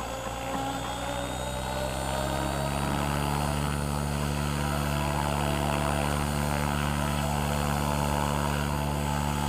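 Blade 700X electric RC helicopter hovering: a steady rotor buzz with the whine of its brushless motor and pinion gear drive, growing louder over the first couple of seconds and then holding steady.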